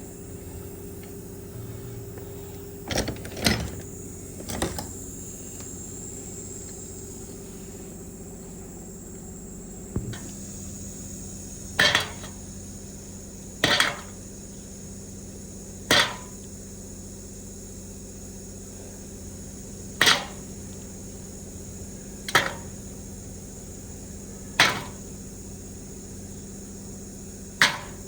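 Metal parts of a truck steering column being handled and knocked with tools: sharp, short metallic knocks and clicks, about ten of them, spaced roughly two seconds apart in the second half, over a steady faint hum.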